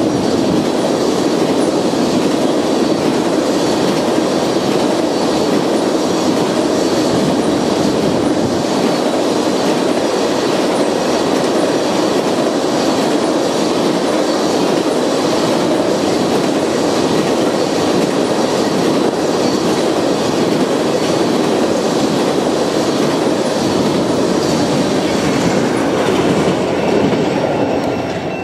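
Empty railroad tank cars of an oil train rolling past: a steady, loud rumble and rattle of steel wheels on the rails. It fades near the end as the tail of the train moves away.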